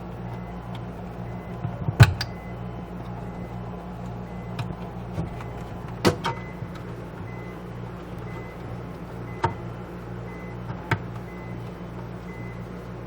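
A few sharp plastic clicks and knocks from handling the refrigerator's lamp socket and light-housing parts, the loudest about 2 seconds in and again about 6 seconds in, with smaller ones later, over a steady low hum.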